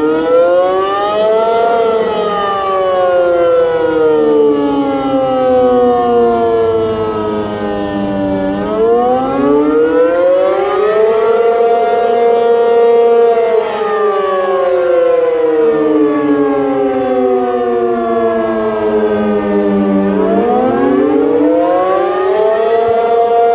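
ACA P50 outdoor tornado warning siren sounding its wail during a test. The pitch rises quickly, holds briefly at the top, then falls slowly, and this happens three times.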